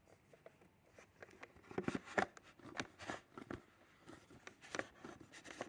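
Plastic parts of a stick vacuum cleaner being handled and pushed together: an irregular run of clicks, knocks and rattles, loudest about two seconds in.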